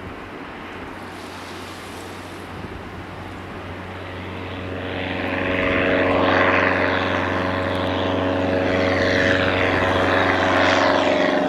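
Cessna 172S Skyhawk SP's four-cylinder Lycoming piston engine and two-blade propeller at takeoff power on climb-out, a steady drone that grows much louder about five seconds in as the plane comes close, with a sweeping, phasing whoosh as it nears overhead.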